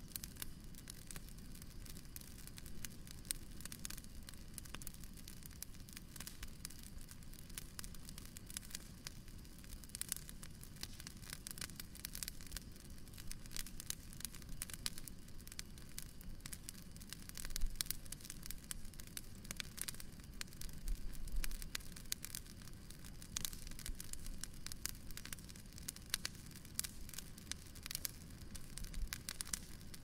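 Bonfire crackling: dense, irregular snaps and pops over a low, steady rush, with a couple of louder pops past the middle.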